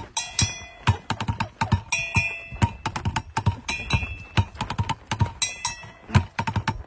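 Fast rhythmic hand percussion beaten out on a box as a dance beat, dense sharp strikes throughout. A short high pitched phrase recurs about every second and a half to two seconds.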